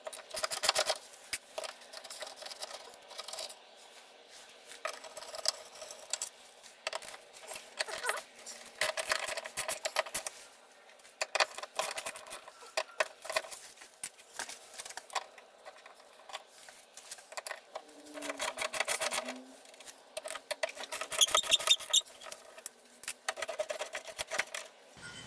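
Socket ratchet clicking in repeated short runs of rapid clicks, about one run every second or two, as the rear differential's mounting bolts are undone.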